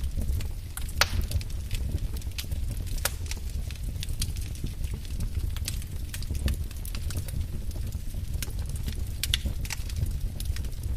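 Fire in a fireplace crackling: irregular sharp pops and snaps of varying loudness over a steady low rumble of the flames.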